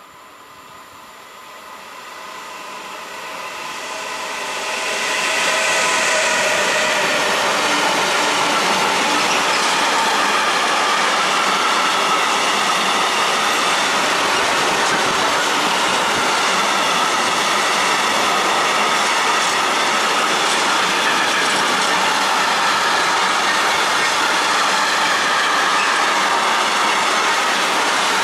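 Container freight train approaching and running past close by, its wagons rumbling over the rails with steady high squealing from the wheels. It grows louder over the first five seconds or so, then stays loud and even as the wagons go by.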